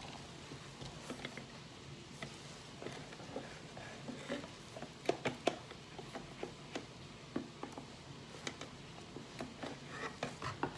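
Parts of an OXO Brew conical burr coffee grinder being handled: scattered light clicks and taps, the loudest two about five seconds in. The grinder's motor is not running.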